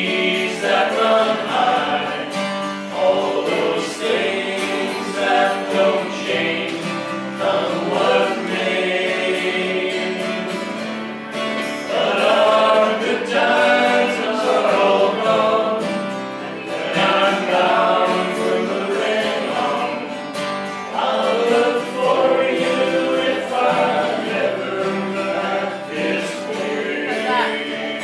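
A group of five men singing a folk song together, accompanied by two strummed acoustic guitars.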